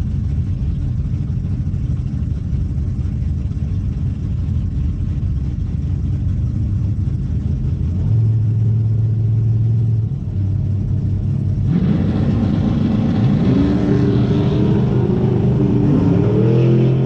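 Drag racing cars launching and accelerating down the strip, their engines climbing in pitch together from about two-thirds of the way in, heard from inside a car over a steady low wind rumble.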